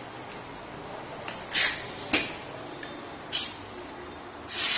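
Compressed-air hose being coupled to an Ingco 1-inch air impact wrench's inlet fitting: a few short hisses of escaping air and a sharp click of the coupler, with the longest hiss near the end.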